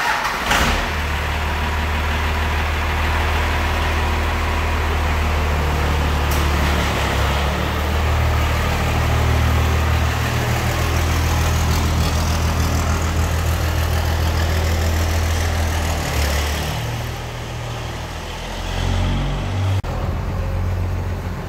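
A 12-valve Cummins 5.9-litre inline-six turbo diesel in a 1995 Dodge Ram running at low revs, its pitch shifting a little as the truck moves off. It gets somewhat quieter about three-quarters of the way through.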